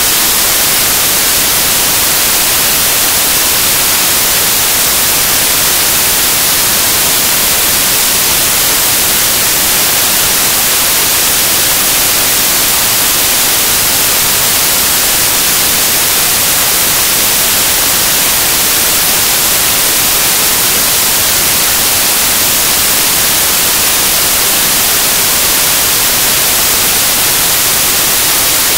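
Loud, steady white-noise hiss that cuts in abruptly out of dead silence and runs unchanged, with no voice or music in it: the audio has dropped out to static, the sign of a recording or signal fault.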